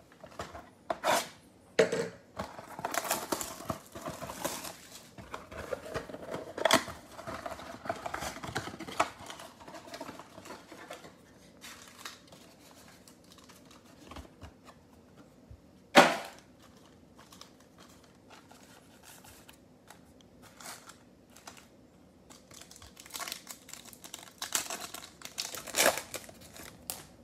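Tearing and crinkling of plastic wrap and cardboard as a Panini Select football trading-card mega box is opened and its foil packs are taken out. There is a single sharp snap about sixteen seconds in, and more foil crinkling near the end as a pack is torn open.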